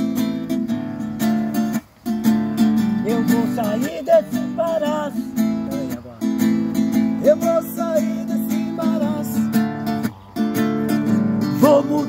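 Acoustic guitar strummed in a steady rhythm of chords, an instrumental break between sung verses, with the strumming stopping for a moment about two seconds in and again near the end.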